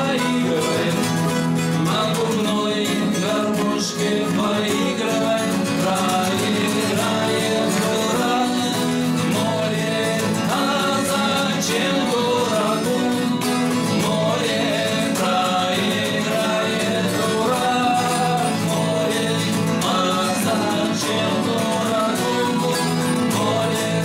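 Two acoustic guitars played together, one a natural-wood and one a black guitar, while men sing a Russian bard song in duet.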